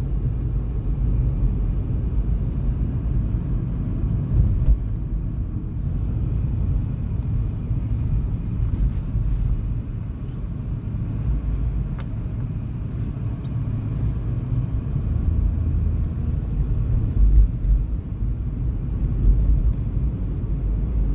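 Steady low road rumble and engine noise of a car being driven, heard from inside the cabin.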